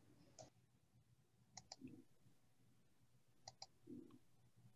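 Faint computer mouse clicks: one click, then two quick double clicks about two seconds apart, each double click followed by a soft low thud.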